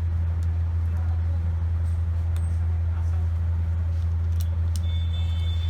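A steady low hum throughout, with a few faint clicks. About five seconds in, a high steady electronic tone of several pitches starts.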